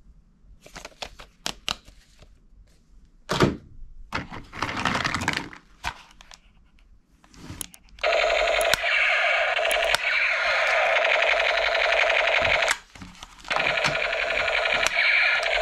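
Hard plastic toy guns clicking and rattling as they are handled. From about halfway through, a battery-powered toy gun's electronic sound effect plays loudly and steadily, breaking off briefly near the end.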